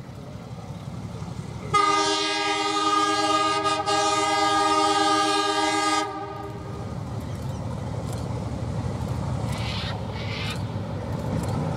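Ex-South Australian Railways Alco diesel-electric locomotive 958 sounds one long multi-note air-horn blast of about four seconds, a chord of several tones, a couple of seconds in. Under and after the horn its diesel engine rumbles, growing louder as the train approaches.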